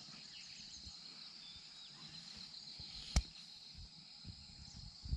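Steady high-pitched insect drone of crickets or cicadas, with faint chirps over it, and a single sharp click about three seconds in.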